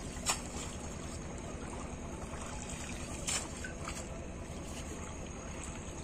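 Water splashing and trickling as a cast net is worked and lifted in shallow river water, over a steady background noise, with two brief sharp splashes, one just after the start and one about halfway through.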